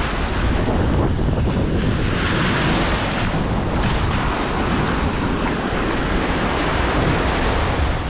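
Small Atlantic Ocean waves breaking and washing foamy up a sandy beach, a steady surf hiss that swells about two seconds in, with wind buffeting the microphone in a low rumble.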